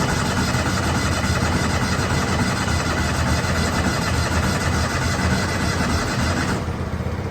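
Riding lawnmower's small petrol engine running on choke just after starting. About six and a half seconds in, its sound thins and drops as the engine falters; it is struggling to keep running.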